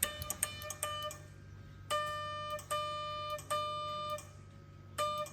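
Morse code beeps sending SOS: three short beeps, three long beeps, then the first short beeps of the last group. The tone is steady and mid-pitched, with a sharp click at the start of each beep.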